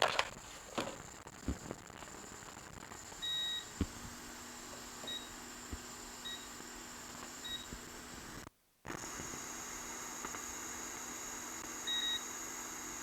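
A bench electronics device giving high electronic beeps: one longer beep about three seconds in, then three short beeps about a second apart, and another beep near the end, over a faint steady hum and a few light clicks.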